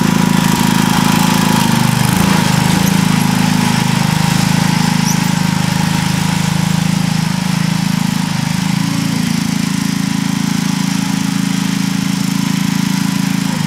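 Sears ST16 garden tractor engine running steadily as the tractor drives across the garden, with a thin high whine over the engine note. It grows a little quieter about halfway through as the tractor moves away.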